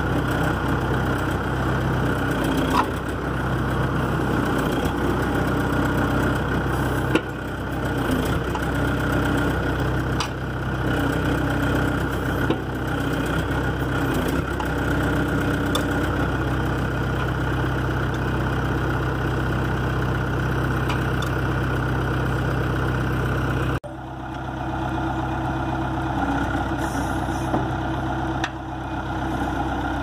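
2005 John Deere 410G backhoe's four-cylinder turbo diesel engine running steadily at idle, with a few light clicks. About three-quarters of the way through, the sound drops out for an instant and comes back slightly different.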